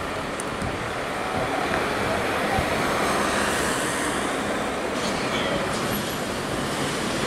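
Street traffic noise: a steady rumble of vehicles, swelling slightly a couple of seconds in.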